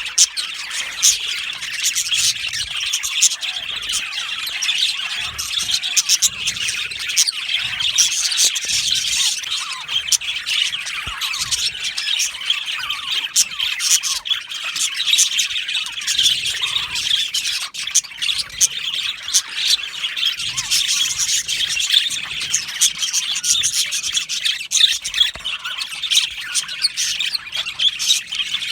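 A colony of budgerigars chirping and chattering together, a dense, steady flock chorus of many overlapping high chirps, squawks and clicks.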